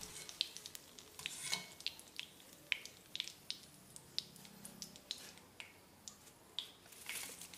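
Curry leaves and green chillies frying in hot coconut oil: a faint sizzle with scattered, irregular sharp pops and crackles.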